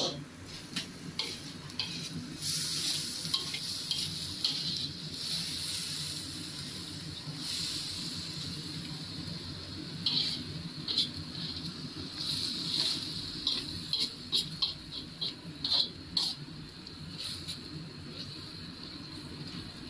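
A frog-meat and chive stir-fry sizzling steadily in a pan, with a spatula scraping and clinking against the pan in short strokes, most often in the middle part.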